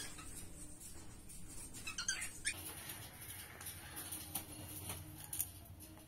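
Pet cockatiels: faint scattered clicks and scratches, with one short chirp about two seconds in.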